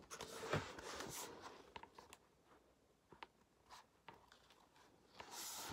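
Faint handling noise of an open picture book held close to the microphone: soft rubbing and rustling of paper and cover with a few small clicks in the first second or so, then near quiet, and a short soft hiss near the end.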